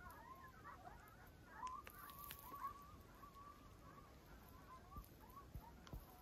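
Faint, distant chorus of many overlapping wavering animal calls, dense at first and thinning out after about four seconds. A few low thuds come near the end.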